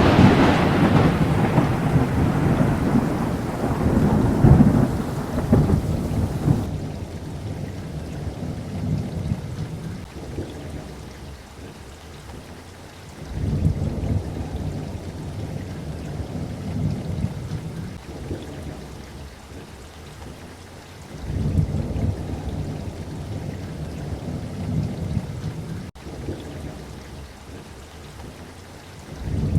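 Thunderstorm: steady rain with rolling thunder. A rumble dies away over the first few seconds, two more rolls of thunder swell and fade later on, and another begins right at the end.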